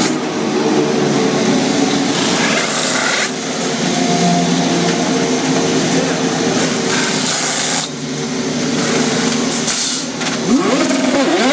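Indy car pit stop: pneumatic wheel guns rattle in short bursts over a steady bed of race-engine noise. Near the end, the car's engine revs up and down as it pulls away.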